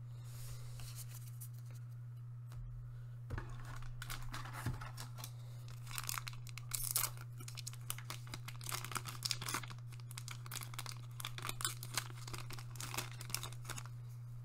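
A foil One Piece Card Game booster pack being crinkled in the hands and torn open, a run of irregular crackles and rips that starts a few seconds in and gets busier about halfway through. A steady low hum sits underneath.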